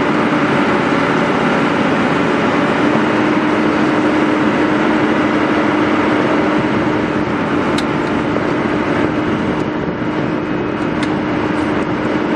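Excavator running steadily, its engine and hydraulics giving a constant droning hum. A few light clicks come in the second half.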